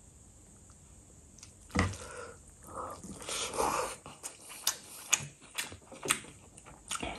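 Bare fingers mixing and pressing rice with mutton gravy on the plate: a soft thump about two seconds in, then a cluster of wet squishing sounds and a string of small sticky clicks.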